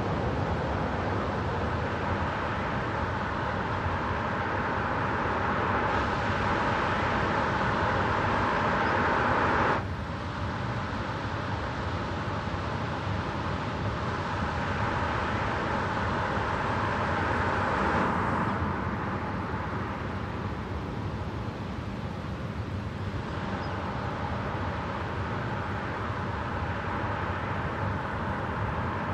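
Car driving at speed: steady tyre and road noise with a faint steady hum. The sound changes abruptly twice, about ten and eighteen seconds in.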